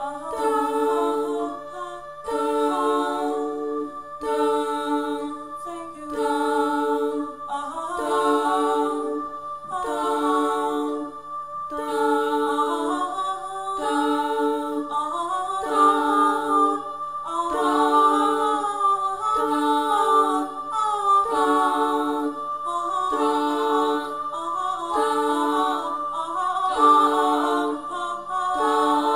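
Women's vocal ensemble singing: a low sung chord pulses about once a second while higher voices glide through a melody above it, over a steady low hum.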